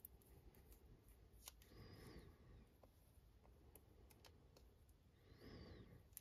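Near silence: faint clicks and two soft rustles as hands handle a roll of black insulation tape.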